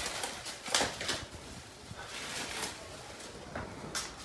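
Plastic wrap crinkling and rustling in a few short, soft scrapes as it is pulled off a tray of raw meat.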